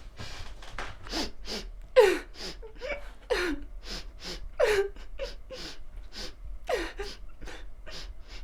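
A person sobbing: short gasping breaths between several brief whimpering cries that fall in pitch.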